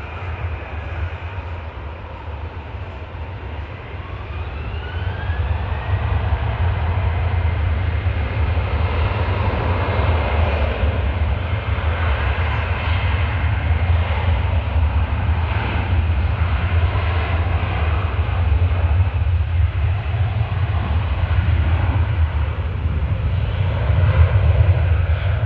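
Boeing 737 jet engines at takeoff power, with a deep steady rumble. A rising whine about four to six seconds in comes as the sound swells, then it holds loud and steady.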